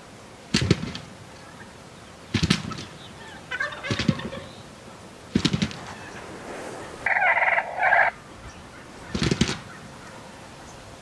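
Gould's wild turkey toms gobbling, five short rattling gobbles spread a second or two apart. Two louder, higher-pitched calls come in close succession about seven seconds in.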